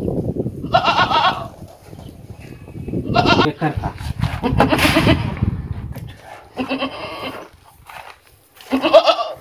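Goats bleating, about five separate calls spread over several seconds. A low rumbling noise sits under several of the calls.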